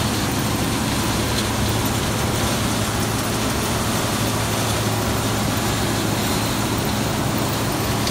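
Farm machinery engine running steadily: a constant low hum under an even rushing noise, unchanged throughout.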